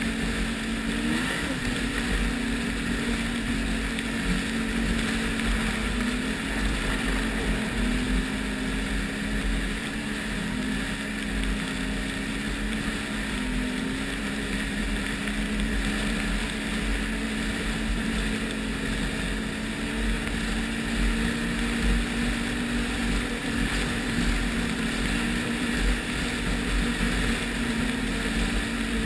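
Ski-Doo Renegade 1200 snowmobile's three-cylinder four-stroke engine running at a steady cruise, its pitch dipping and rising a little with the throttle, under wind noise.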